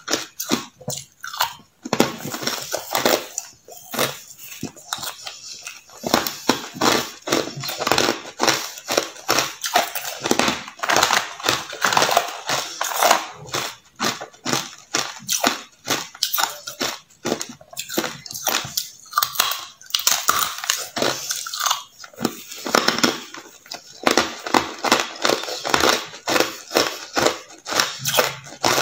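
Hard clear ice being bitten and chewed, a fast, irregular run of sharp cracks and crunches between the teeth.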